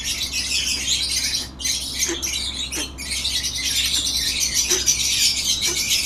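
Small parrot's rattling, wheezy breathing, the 'khur khur' sound, with a few faint squeaks. The keeper takes it as the sign of a respiratory cold (nazla).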